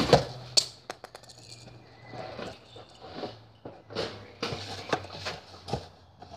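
Handling noise: a cardboard box being handled and set down, with a couple of sharp knocks in the first second, then scattered scuffs and light knocks as someone moves about on paving.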